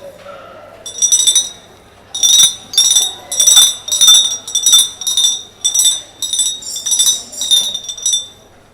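A spoon clinking against glass cold-drink bottles, a street drink seller's call for customers. It comes in quick rattling bursts of strikes, about one burst a second, each ringing bright and high.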